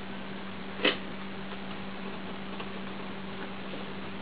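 One sharp plastic click about a second in, with a few faint ticks, over a steady low electrical hum: the Lego Technic helicopter's joystick and swivelling main-rotor linkage being worked by hand.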